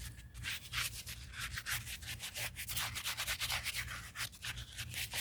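Old concrete bird bath being scrubbed by hand, with rapid back-and-forth scraping strokes at about three or four a second, to take off dirt and peeling paint.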